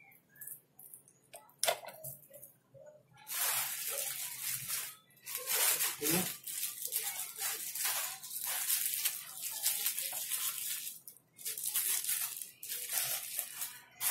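Clear plastic bag crinkling and rustling as it is handled and tied around a plant pot. It starts about three seconds in and goes on in stretches with short pauses, after a single sharp click about two seconds in.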